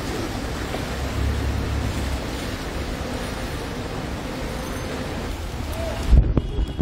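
Wind buffeting the microphone: a steady rushing noise with a heavy low rumble, and a few loud knocks about six seconds in.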